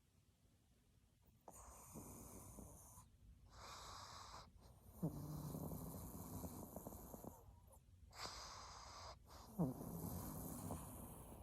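A pug snoring: a run of noisy, hissing breaths starting about a second and a half in, the two loudest carrying a low buzzing snore, roughly four and a half seconds apart.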